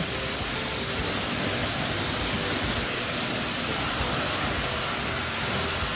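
High-pressure washer jet spraying a steady fan of water through a 40-degree nozzle onto a scooter, a continuous even hiss with the electric pump running underneath.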